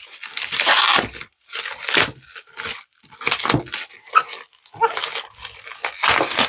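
Bubble wrap crinkling and rustling in irregular bursts as hands pull and peel it off a cardboard box.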